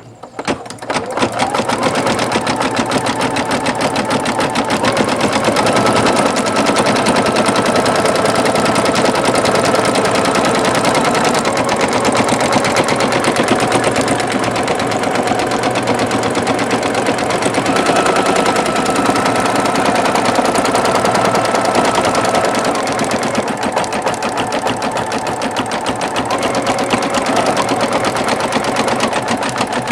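Singer Futura XL-550 sewing machine starting up and stitching steadily at speed, a fast even clatter of needle and hook. The bobbin area runs without the earlier rattle, now that the needle-bar thread catch problem has been corrected.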